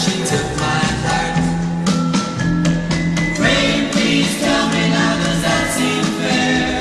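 Pop song playing: a sung vocal with harmonising backing voices over guitar and a steady beat.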